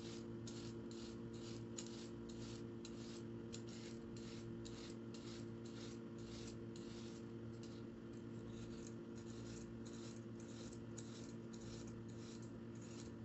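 Vegetable peeler scraping down a raw carrot, shaving it into ribbons: short, even scraping strokes about two to three a second, over a faint steady hum.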